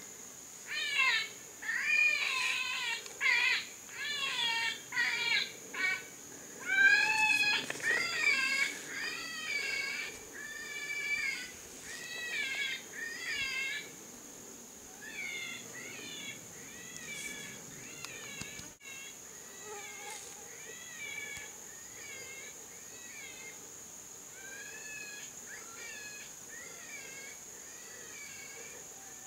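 A wavering, squealing animal-like cry repeated over and over, about two a second and loud for the first half, then fainter and more spaced out from about halfway, over a steady high insect drone.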